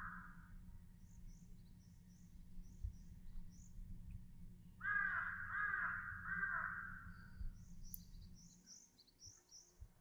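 A crow cawing: a run of about six harsh caws about five seconds in, with the end of an earlier run fading at the start. A small bird's high, quick chirps come in two series, one in the first few seconds and one near the end, over a low rumble that fades near the end.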